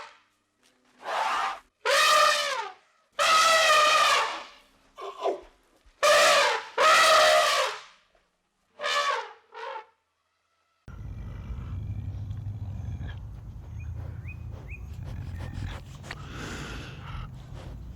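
An animal calling again and again, each call a drawn-out, wavering cry, over the first ten seconds. After a short silence comes a steady low outdoor rumble with faint bird chirps.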